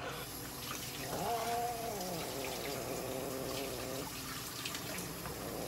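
Long-haired mixed-breed cat giving one long, drawn-out yowl, starting about a second in and lasting over two seconds, rising and then slowly sinking in pitch while it is held on the exam table.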